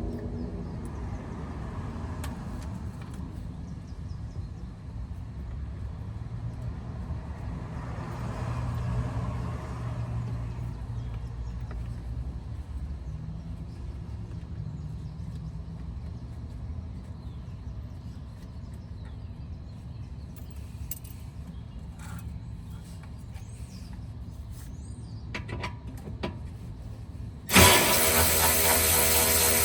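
A low steady rumble with a few light clicks and taps from working on the car's underside, then near the end a cordless ratchet starts up and runs with a loud steady whir, driving out the undercover's 10mm bolts.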